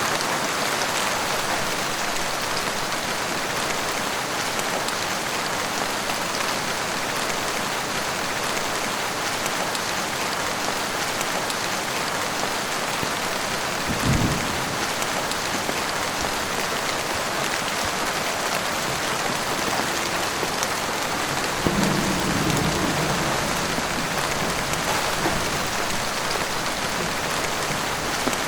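Heavy rain falling steadily. There is a brief low rumble about halfway through, and a longer one of about two seconds some eight seconds later.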